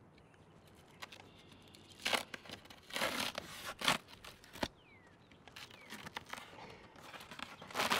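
Self-adhered house wrap being peeled off OSB sheathing: several short ripping, crinkling bursts as the sticky membrane lets go, about two, three and four seconds in and again near the end, with a single sharp click in between.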